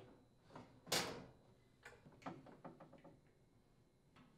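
Faint handling noises of a washer's steel suspension rod and plastic ball support being fitted together: a scraping rustle about a second in, then a run of light clicks and taps.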